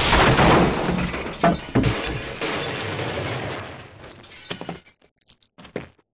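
Crash of a floor breaking and caving in, with rubble falling through. Two sharper crashes come about one and a half seconds in, then the noise dies away into scattered bits of debris dropping near the end.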